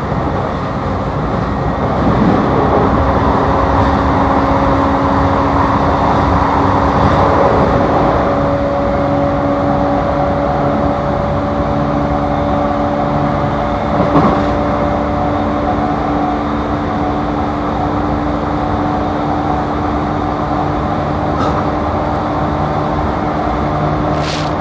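Running noise inside a JR East E235-series electric train car cruising between stations: a steady rumble of wheels on rail with a steady motor hum. A single knock sounds about fourteen seconds in.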